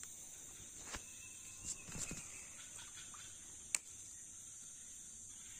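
Steady high-pitched drone of insects in the forest, with a few soft knocks and one sharp click about three and a half seconds in.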